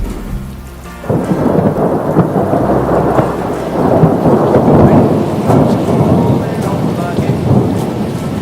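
Thunder: a clap breaks in suddenly about a second in and rolls on as a long crackling rumble, loudest around the middle and slowly fading. The tail of a song is heard just before it.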